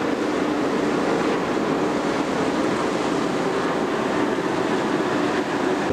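Ferry's engines running as the ship gets under way: a steady, even rumble.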